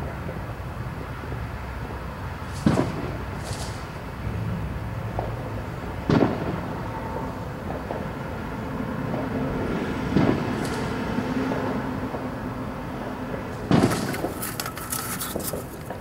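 Distant fireworks: four separate booms, roughly every three to four seconds, each with a short echoing tail. The last boom is followed by a couple of seconds of crackling. Under them runs a steady low background rumble.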